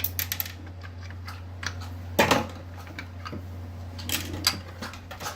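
Irregular clicks and knocks of small parts and tools being handled on a taken-apart mixer grinder, the loudest about two seconds in, over a steady low hum.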